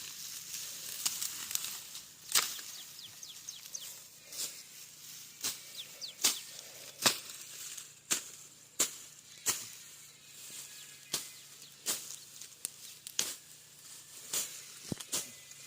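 Repeated short, sharp strokes of a hand tool cutting through grass and brush while a field is cleared by hand, a little more than one stroke a second and unevenly spaced.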